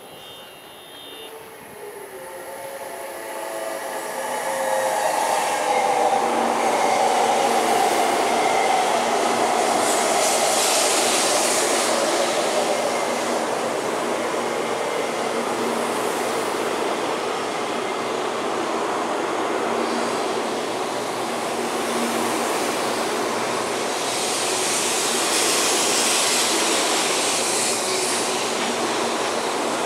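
Taiwan High Speed Rail 700T electric bullet train pulling into the station and slowing along the platform. A rushing rolling noise builds over the first few seconds and stays loud, under an electric whine that falls in pitch as the train brakes. Brief hissing surges come twice, about ten seconds in and again near the end.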